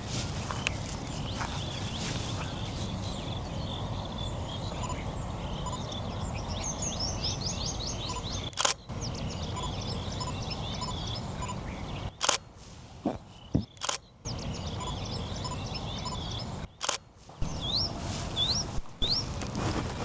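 Wild birds calling over steady outdoor background noise: a rapid run of high chirps partway through, and four short rising whistles near the end. A few brief sharp clicks break in around the middle.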